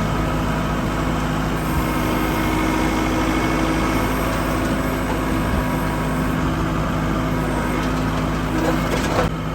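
Tractor engine running steadily at an even speed while it is used to push and winch logs up for loading.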